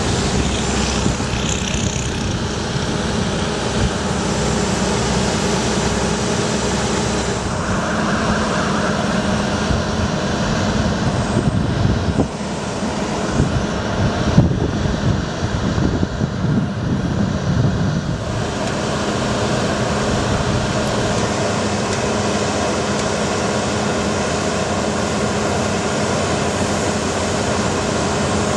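Freightliner M2 bucket truck's engine running steadily with an even hum, powering the hydraulics as the Altec AM55-MH boom raises and extends. The sound grows rougher and more uneven for a few seconds around the middle, with one sharp knock.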